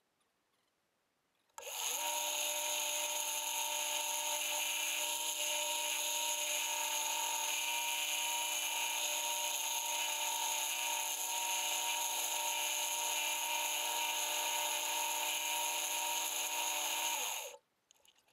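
Wood lathe switched on with a pen blank mounted, its motor spinning up with a rising whine, then running steadily with a high whine and hiss for about fifteen seconds before winding down to a stop.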